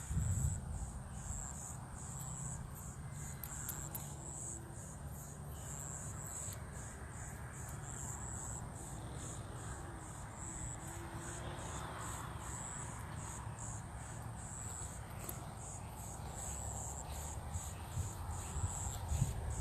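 Crickets chirping in a steady, high-pitched pulsing rhythm, about three pulses a second, over a low outdoor rumble.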